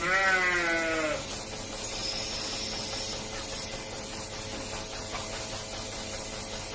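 A calf bawling once, a call about a second long that falls slightly in pitch.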